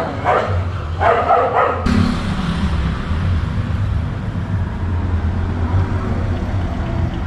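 Honda Hornet motorcycle engine running with a steady low hum, while a dog barks a few times in the first two seconds.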